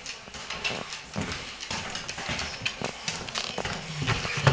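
A German shepherd's claws clicking on a hardwood floor as it walks: an irregular run of sharp ticks and taps.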